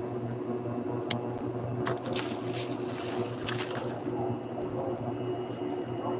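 Kitchen range hood fan running with a steady hum. There is a sharp click about a second in.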